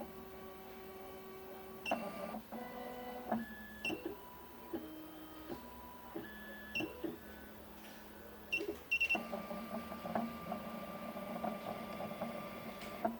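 Stepper motors of a Miracle A9 key-cutting machine whining as the machine drives its carriage and spindle through an automatic calibration measurement. The whine steps from one steady pitch to another, with a few short high beeps and busier, rattling stretches about two seconds in and again from about nine seconds.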